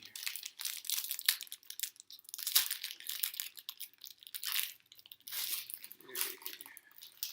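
Plastic trading-card pack wrapper being torn open and crinkled by hand, a run of sharp crackling rustles in uneven clusters.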